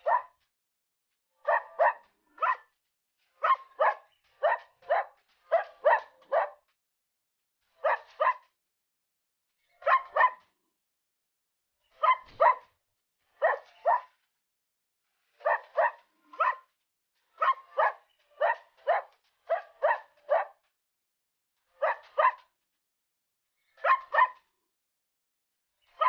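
A dog barking: short barks, singly or in quick runs of two to four, with silent gaps between the runs.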